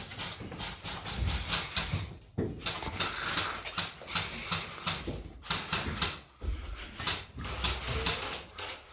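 Quick, heavy breathing in puffs, several a second, and footsteps on a gravelly, rubble-strewn path, from the person filming as she walks with the camera.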